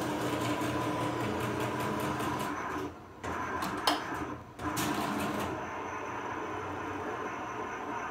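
Cutting plotter's motors whirring as it moves a sheet for a family-crest engraving stencil. The whirring drops out briefly about three seconds in and again about four and a half seconds in, with a sharp click between, then settles into a steadier hum.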